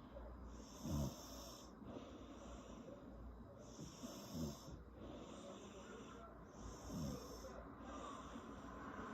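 A woman snoring, her lips flapping and popping as she breathes out. Three louder snores come about every three seconds, each falling in pitch.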